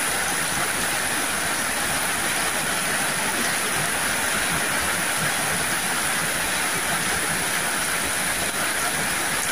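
Heavy rain pouring down steadily, a dense even hiss of rain striking the concrete ground, puddles and roofs.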